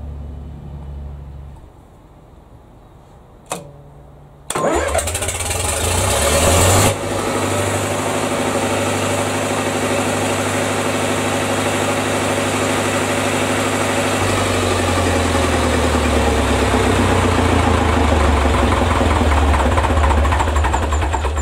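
Lister four-cylinder diesel generator set being started. A low hum dies away, a single click follows, then the electric starter cranks for about two seconds and the engine catches and settles into steady running. About ten seconds after it starts, the engine's note shifts slightly and it runs on evenly.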